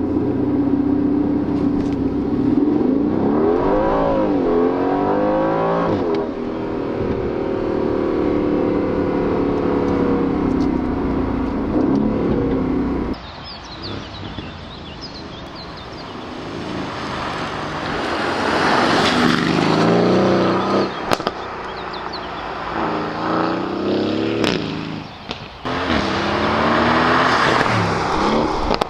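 Aston Martin Vantage's twin-turbo V8 running and revving hard, the engine note climbing and falling several times, with a steadier stretch and a few sharp cracks in the second half.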